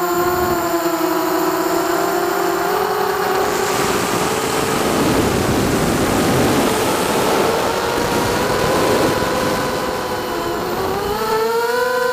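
Lumenier 2206 2000kV brushless motors and propellers of an FPV racing quadcopter whining, heard from the onboard camera. The pitch drops at the start as throttle is cut, a rush of air noise rises in the middle during the descent, and the whine climbs again near the end as throttle comes back in near the ground.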